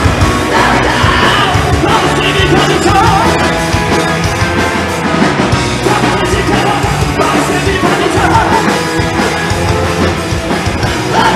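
Live rock band playing loudly, with a singer's vocals over the band, heard from among the crowd in the bar.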